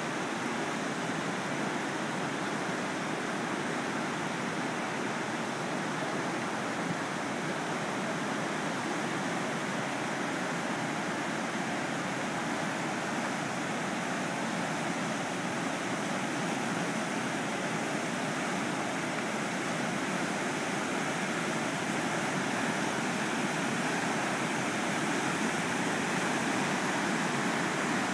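A swollen river in flood rushing past in a steady, unbroken roar of fast water.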